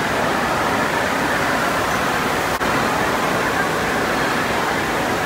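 Steady rush of water from water-slide outflow churning into a splash-down pool.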